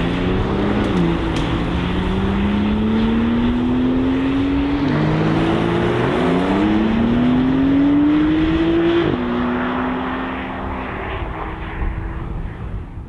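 Sports car engine accelerating hard, its revs climbing steadily and dropping sharply at each of three upshifts. It then holds a steady note and fades away near the end.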